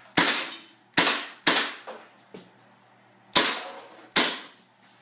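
Marushin Five-seveN CO2 gas-blowback airsoft pistol firing five sharp shots, each with a short fading tail: three in quick succession, a pause of about two seconds, then two more.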